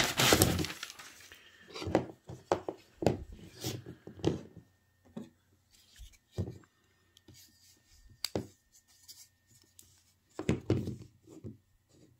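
A sheet of paper rustling as it is moved aside, then a series of sharp clicks and taps as folding karambit knives are handled and set down on a cutting mat, with a last cluster of taps near the end.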